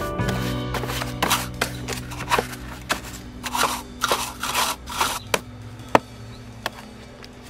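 Irregular scraping and clicking strokes on a Bosch Indego XS300 robot mower during maintenance, about one or two a second, growing sparser and quieter toward the end, over a low steady hum.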